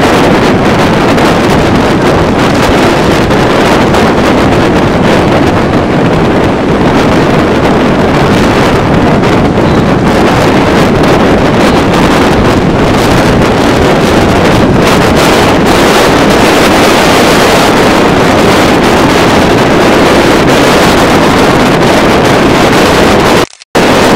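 Wind blasting across the microphone over breaking surf, a loud steady rush that cuts out for an instant near the end.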